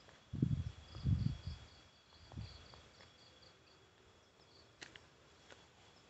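Night insects: a cricket chirping in a high, even series of about four short chirps a second, over a faint steady high buzz. Three dull low thumps come in the first couple of seconds.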